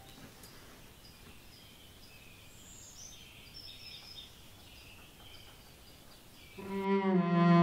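Faint outdoor ambience with soft, scattered bird chirps. About six and a half seconds in, orchestral music comes in with low sustained notes.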